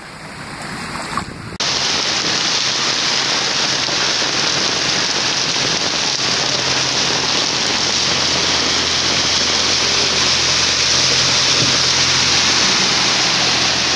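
Heavy downpour: a loud, steady hiss of rain that starts abruptly about a second and a half in, after a quieter stretch.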